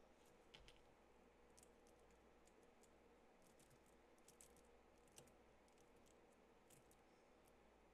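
Faint, scattered light clicks of long gel nail extensions and their rhinestone charms tapping together as the fingers move, over near-silent room tone.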